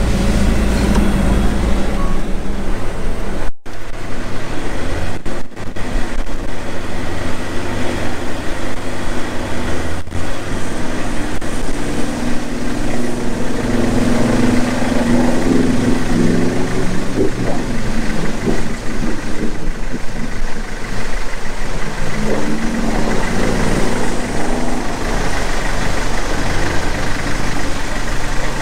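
Four-wheel drive's engine running steadily at low speed, heard from inside the cabin, while crossing a flooded, rapid creek.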